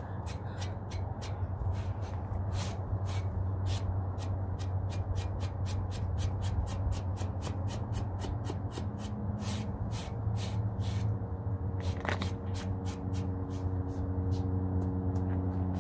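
Quick scratchy strokes, a few a second, of a foam paint brush rubbed against a bare wooden fence board, over a steady low hum. About twelve seconds in, a low droning tone joins.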